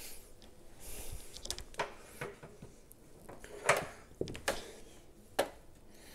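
Scattered clicks and knocks of a power cord and its plug being handled and fitted into the socket on the back of a red light therapy panel, the loudest knock about three and a half seconds in.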